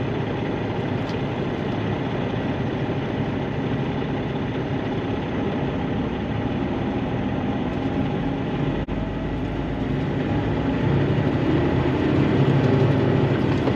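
Semi truck's engine running steadily, then growing louder from about ten seconds in as it works under load.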